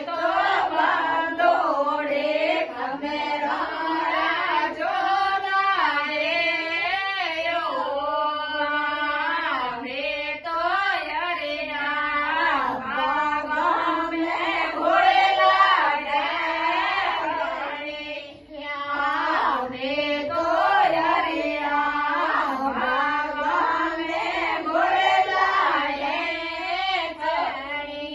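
A woman's voice singing a Marwari devotional harjas, the melody bending and ornamented, over a steady low drone, with a brief break about two-thirds of the way through.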